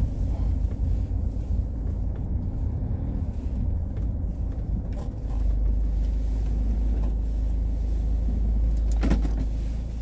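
Car cabin noise picked up by a dashcam: a low rumble that turns into a steadier, louder low hum about halfway through, with a short knock near the end.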